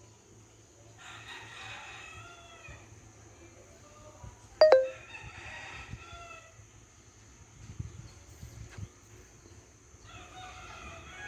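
A rooster crowing three times, each crow about two seconds long and falling at the end. A sharp, very loud short squeak cuts in about four and a half seconds in.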